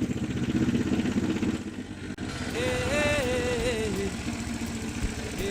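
Fishing boat's engine running, dipping briefly about two seconds in and then revving up again, its pitch rising and wavering.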